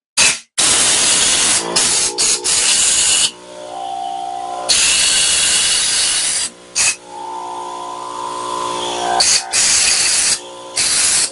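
Compressed air from a blow gun hissing into a lawn mower's small gas tank in repeated loud blasts, drying out the tank after water-contaminated fuel was drained. A quieter steady humming tone fills the gaps between blasts.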